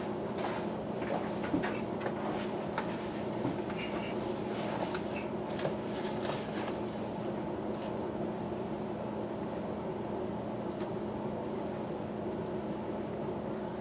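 Steady machine hum, like a running fan, with scattered light clicks and knocks of hand work on parts and screws that thin out about two thirds of the way through.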